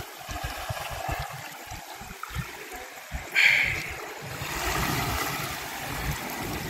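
Gusty sea wind buffeting the microphone in low rumbling gusts, with a short burst of hiss about three and a half seconds in and a steadier rushing noise after it.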